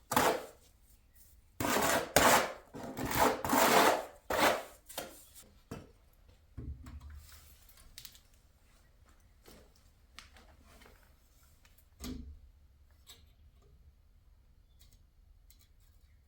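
A tool scraping through freshly mixed mortar: a run of loud, rasping strokes in the first few seconds, then quieter scattered scrapes and knocks with a couple of dull thuds.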